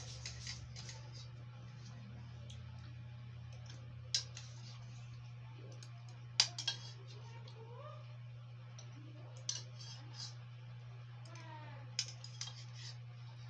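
A metal spoon clinks against a cereal bowl while a child eats: about six sharp clicks, spaced a few seconds apart, over a steady low hum.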